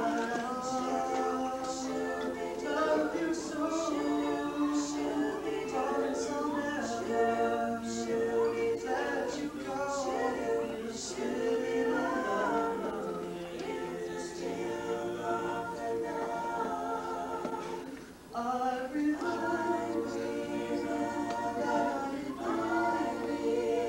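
Small mixed vocal ensemble of men's and women's voices singing a cappella in harmony, holding long notes. There is a brief break about three-quarters of the way through before the next phrase begins.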